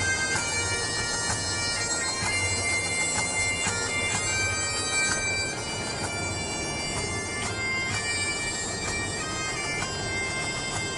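Bagpipe music playing: a melody of changing notes over a steady drone.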